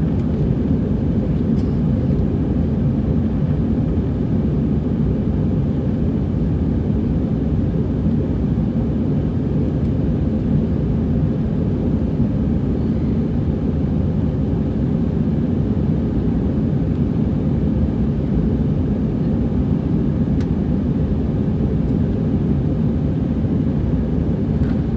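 Airbus A320 in flight after takeoff, heard from inside the cabin: engine and airflow noise as a steady, even low drone.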